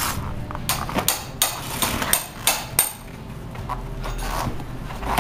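Sharp metallic clicks and clinks, about seven in quick succession in the first three seconds, some with a short ring, then quieter. They come from a bicycle wheel being handled as its inner tube is pulled out from the tire and rim with a plastic tire lever.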